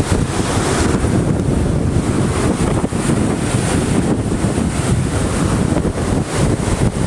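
Fast-flowing floodwater of a swollen creek rushing steadily, mixed with wind buffeting the microphone in an uneven low rumble.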